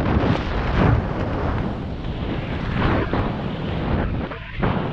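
Freefall airflow rushing over a skydiver's camera microphone: a loud, steady wind roar that swells and ebbs in gusts.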